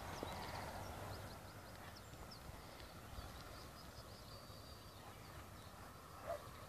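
Faint rural outdoor ambience: a steady low wind rumble with scattered small bird chirps, and a dog's bark in the distance near the end.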